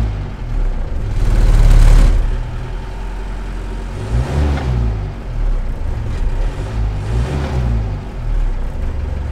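Mercedes-Benz 608D's diesel engine running just after a cold start, having sat unused for a week. It revs up loudly between one and two seconds in, then settles, with the revs rising and falling twice more as it warms.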